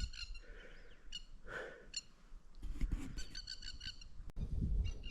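Wild birds calling, with quick runs of short high chirping notes in the middle, over low rumbling noise; a single sharp click about four seconds in.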